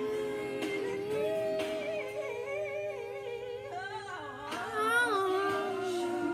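Music with a singing voice, long held notes that waver in pitch about two thirds of the way through.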